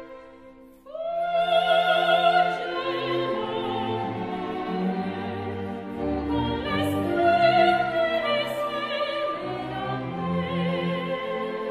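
Operatic singing with orchestra: a voice holds long notes with a wide vibrato over sustained strings. The singing comes in about a second in after a brief lull.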